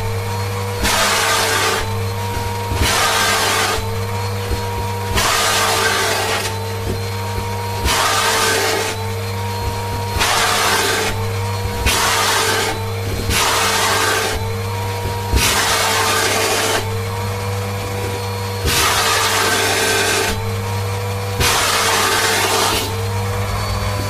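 Siemens Synchropower vacuum cleaner running steadily while its nozzle sucks at a fur foxtail. The suction hiss swells and drops about every two seconds as the nozzle works the fur, and the motor's pitch wavers slightly with each change.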